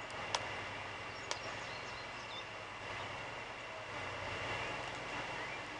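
Two faint clicks in the first second and a half as a sheet of wired wax foundation is worked into the bottom groove of a wooden beehive frame, over a steady low background hum.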